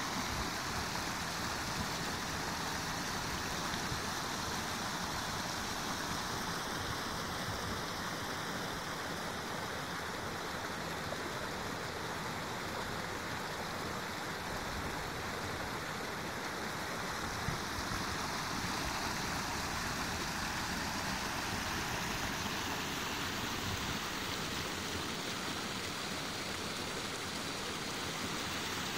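Shallow stream pouring over a low rock ledge in a small cascade: a steady rush of water.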